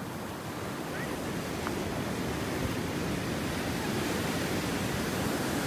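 Ocean surf washing up the beach: a steady rush of noise that slowly grows louder.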